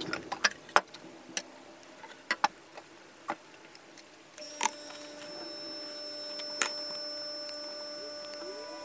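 A run of sharp clicks and knocks, with several louder ones in the first second, then a steady hum with a high tone that starts about halfway through.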